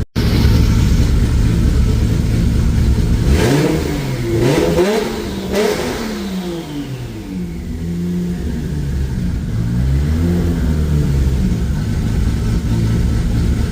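Rebuilt turbocharged Toyota 2JZ inline-six running and revving, its pitch climbing and falling a few times in the middle, then holding higher near the end.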